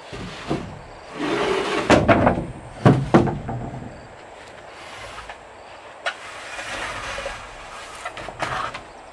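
Sawn wooden planks being handled: a board scraping along another, then several sharp wooden knocks about two to three seconds in as the boards bump together, followed by a few lighter bumps.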